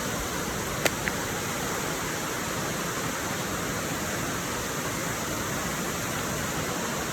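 Waterfall's steady rush of falling water, with a sharp knock a little under a second in and a fainter one just after it.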